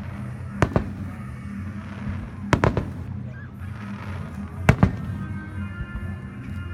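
Fireworks shells bursting overhead: sharp bangs in quick pairs and triplets, one cluster about every two seconds.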